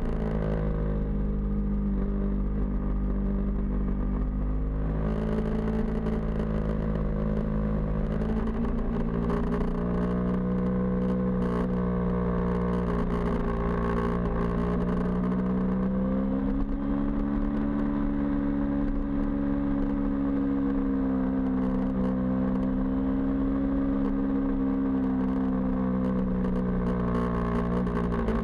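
FPV quadcopter's motors and propellers whining steadily, the pitch drifting gently up and down with throttle and stepping up about halfway through, over a constant low wind rumble.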